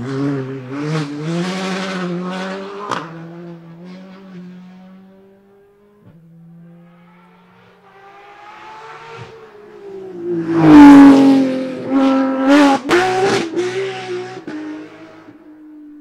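A Hyundai i20 Rally2 car's turbocharged engine accelerating away at full throttle, its pitch climbing and stepping down at each gear change as it fades. Then a second rally car approaches flat out, goes past loudly about eleven seconds in with its pitch dropping, gives a string of sharp cracks as it shifts and lifts, and fades away.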